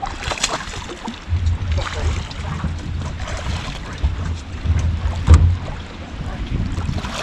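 Wind buffeting the microphone and small waves slapping an aluminium jon boat while a hooked bass splashes at the surface beside it. Several sharp splashes or knocks, the loudest a little past five seconds in.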